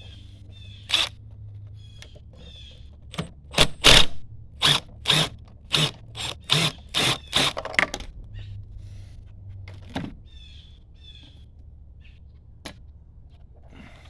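A run of sharp knocks, about two a second for several seconds in the middle, with a few single knocks before and after, from work on a hand railing being taken apart for repair.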